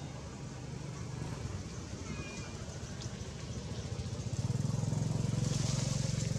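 A motor engine running, a steady low hum that grows louder about four seconds in.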